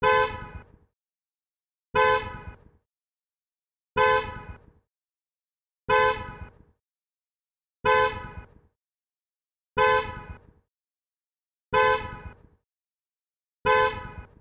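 Car horn giving short single honks on one steady note, repeated eight times about every two seconds, each cut off into a brief fading tail with silence between.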